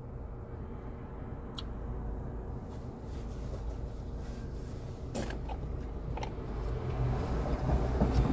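Steady low rumble inside a car's cabin, with a few light clicks; it grows louder near the end.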